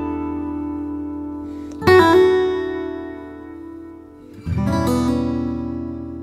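Acoustic guitar music: a strummed chord about two seconds in and another about four and a half seconds in, each left to ring and fade.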